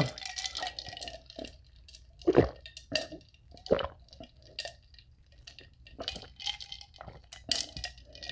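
A woman gulping water from a drinking glass close to the microphone: a series of short separate swallows spread over several seconds.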